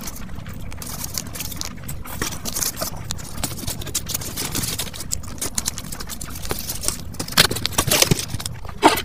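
Close-miked slurping and chewing of Maggi instant noodles: a dense run of wet mouth clicks and smacks, with a few louder noises near the end.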